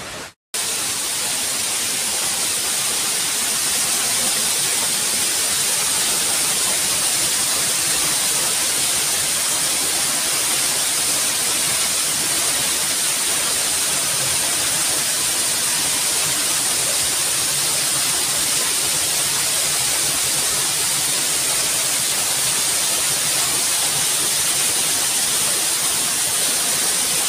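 Waterfall: water pouring down over rock with a loud, constant rushing hiss that cuts in after a brief gap of silence at the very start.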